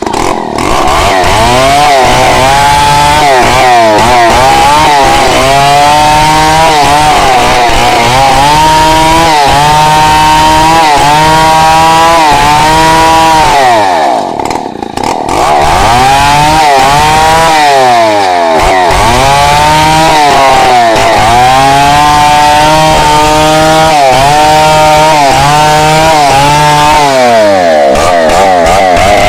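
Chainsaw running at high revs while cutting a log lengthwise. Its engine pitch sags and recovers about once a second as the chain bites. About halfway through it drops back briefly, then picks up and cuts on.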